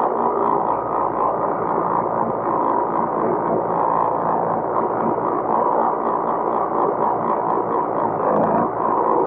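Farm tractor running steadily under load while working a hay field, a loud even drone with a fast, regular mechanical clatter over it.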